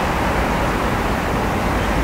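Steady outdoor background noise: an even rumbling hiss with no distinct events.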